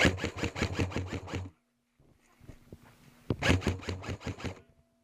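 Airsoft gun firing two bursts on full auto, about eight shots a second, the second burst starting a little over three seconds in.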